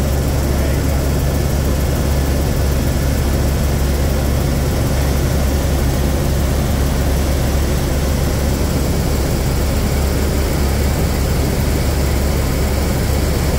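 Cabin noise of an Airbus H125 (AS350 B3 Écureuil) single-turbine helicopter in flight: the Arriel 2B turboshaft and main rotor make a steady, heavy low drone with a constant hiss above it, heard from inside the cockpit.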